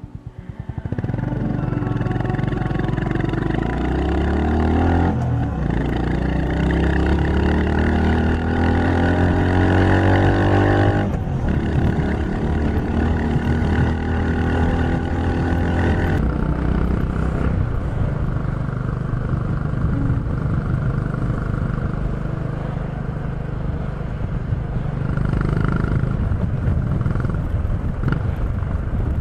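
Honda GB350's air-cooled single-cylinder engine pulling away and accelerating, its pitch climbing through the gears with upshifts about five and eleven seconds in, then settling to a steady cruise.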